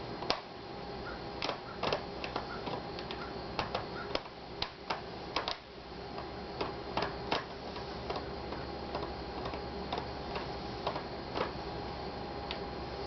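Irregular sharp clicks and taps of a small screwdriver working the hinge screws of a laptop's screen assembly, coming thick and fast for the first seven seconds or so, then only now and then, over a steady low hum.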